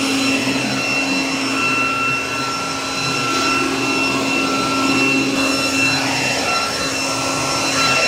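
Ryobi RBV3000VP corded electric garden vacuum-blower running steadily as it vacuums leaves and debris off paving: a constant roar of motor and fan with a high, steady whine over it.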